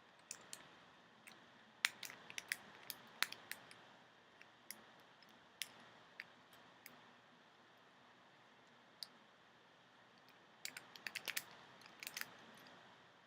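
Faint, scattered clicks of a lock pick and tension tool working the pins inside a Master Lock padlock, in two clusters of rapid clicks with sparse single ticks between.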